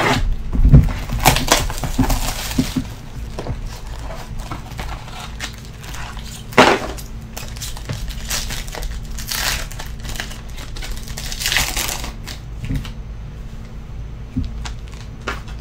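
Foil trading-card pack wrapper crinkling and tearing open in the hands, in short crackling rustles that come and go, the sharpest about six and a half seconds in.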